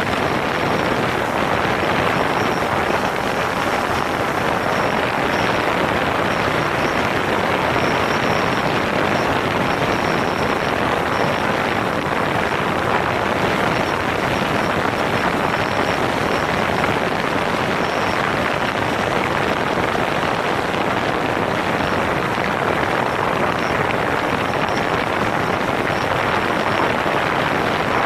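DJI Phantom 4 quadcopter's four electric motors and propellers running steadily in flight, heard from a camera mounted on the drone itself: a loud, even rushing noise with a faint high whine that comes and goes.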